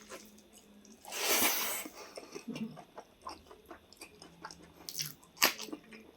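Close-miked eating: a person chewing and biting food, with many small wet clicks. There is a louder noisy rush lasting about a second, starting about a second in, and a single sharp crack near the end.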